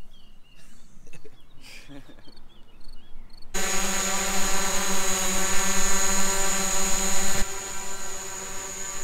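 Quadcopter drone's motors and propellers running steadily: a hum made of many even tones with a high whine on top. It starts abruptly about three and a half seconds in and drops in level about seven and a half seconds in.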